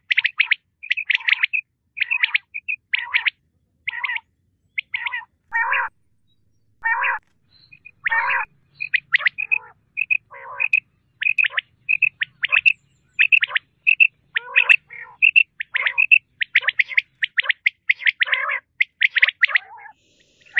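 Common quail calling over and over in quick runs of short, sharp notes, with a few fuller, lower calls mixed in around six to eight seconds in.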